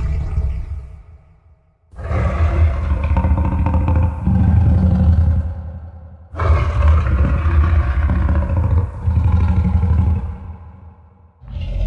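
Fanmade dragon-roar sound effect with echo: a roar tailing off, then two long, deep roars of about four seconds each, each fading away, and a new roar starting near the end.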